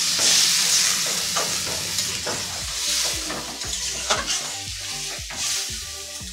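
Potatoes sizzling in hot oil and a little water in a steel kadai, stirred with a metal spatula that scrapes and knocks against the pan again and again. The sizzle slowly dies down as the water cooks the potatoes through.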